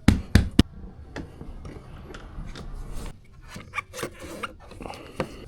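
Hands-on work handling a car windshield and its setting tools: three sharp knocks in the first second, then light rubbing and scattered clicks.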